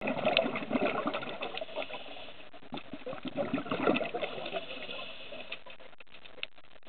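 Underwater ambience picked up by a camera in a housing: irregular watery rushing and crackling clicks, busier and louder in the first four seconds, then thinning to sparse clicks.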